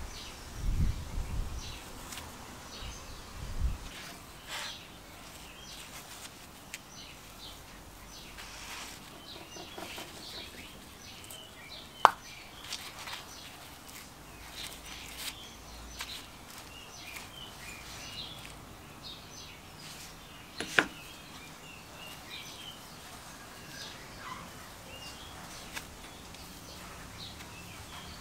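Gloved hands handling the dismantled piston parts of a 1950s Aerite foot tyre pump: low rubbing and knocking at first, then quiet fiddling broken by two sharp clicks. Faint bird chirps in the background throughout.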